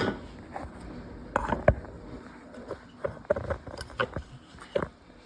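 Irregular sharp clicks and knocks of objects being handled, with a loud knock at the start and a cluster of clicks in the middle.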